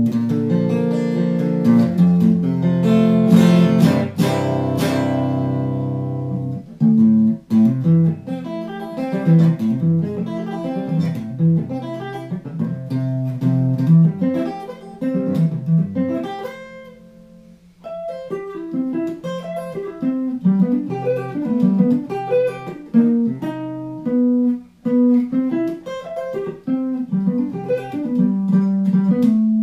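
Hardluck Kings Spider electric guitar on its stock neck pickup with volume and tone full up, played as a tone demo: a few seconds of ringing chords, then quick single-note riffs and lead runs. A little past halfway one note dies away to a brief near pause before the playing picks up again.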